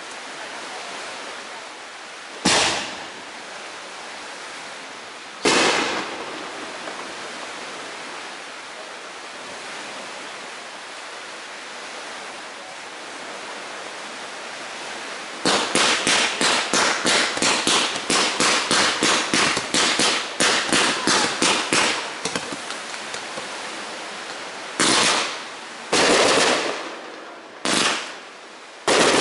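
Fireworks going off over a steady hiss. Two single bangs come a few seconds apart, then a rapid run of regular pops at about three a second lasts six seconds, and four more loud bangs follow near the end as sparks burst overhead.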